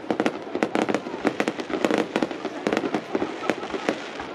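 Fireworks going off in rapid succession: a dense, irregular string of sharp pops and crackles, several a second.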